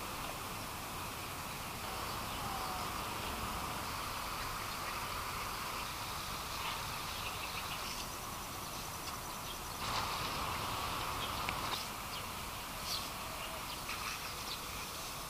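Outdoor park ambience: a steady background hum with short bird chirps now and then, a little louder and busier in the second half.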